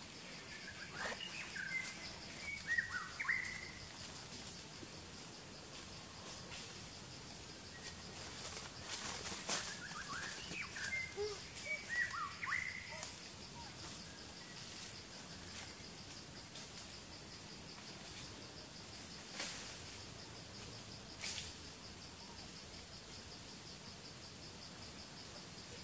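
Forest ambience: a steady high-pitched insect drone, with two bursts of short chirping calls, one about a second in and one around ten seconds in, and a few faint clicks later on.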